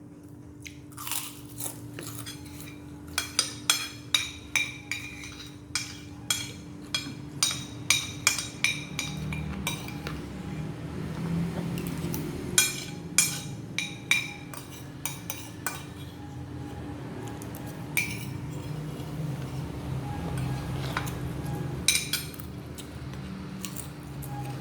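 Metal cutlery clinking and scraping on a plate during a meal, in runs of quick ringing taps with scattered single clinks later on, over a faint steady hum.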